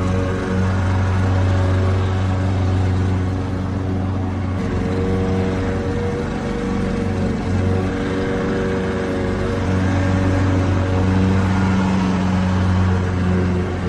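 Lawnmower engine running steadily with a low, even hum over a haze of mechanical noise; the pitch wavers and smears for a few seconds about a third of the way in, then settles again.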